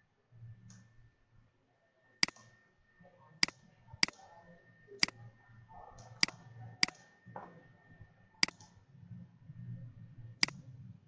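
Computer mouse buttons clicking: about eight sharp single clicks at irregular intervals over a faint low hum.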